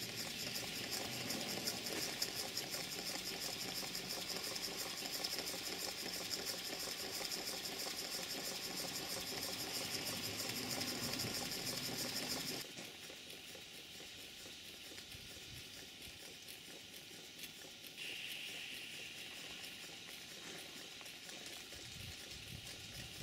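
Small twin-cylinder Tangye-type model stationary steam engine running steadily on steam at low boiler pressure, a fast patter of exhaust beats under a steady hiss of steam. The sound drops to a quieter level about halfway through, and a second hiss comes in near the end.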